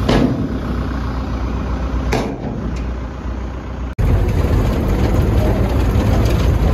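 Truck engine running while a raised dump bed pours a load of chopped corn silage onto the pile. About four seconds in it changes to a steady, heavier truck engine rumble heard from inside the cab in the field.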